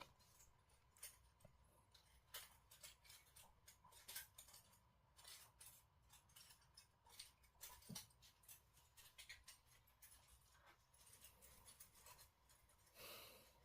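Near silence with faint, irregular small clicks and taps over a faint steady tone.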